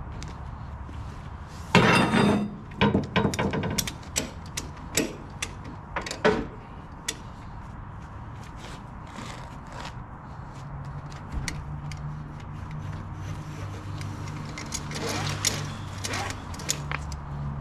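Flatbed tie-down strap hardware and webbing working against the trailer's steel and the cage racks while a load is strapped down: a loud rattling burst about two seconds in, then scattered metal clicks and knocks, and a few more clicks near the end. A low steady hum runs through the second half.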